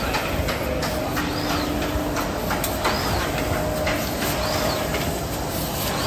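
Laizhang MY-1300 automatic flatbed die-cutting machine running: a steady mechanical clatter with scattered clicks, and a rising-and-falling whoosh that repeats about every second and a half.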